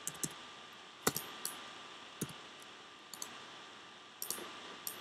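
Computer mouse and keyboard clicks, about ten short, sharp clicks at irregular intervals, the loudest about a second in, over a faint steady hiss and a thin hum.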